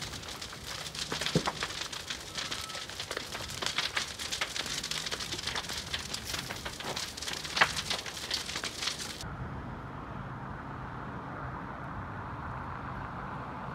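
Burning wooden house crackling and popping in a wildfire: a dense run of sharp snaps, one louder pop near the middle. About nine seconds in, it cuts to a duller steady outdoor noise with no crackle.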